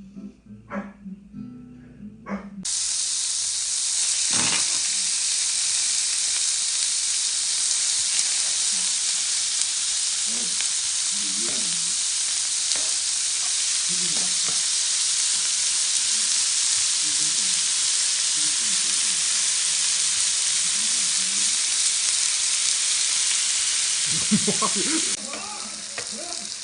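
Food sizzling loudly in a hot pan, a steady frying hiss that starts suddenly about two and a half seconds in and drops off abruptly near the end.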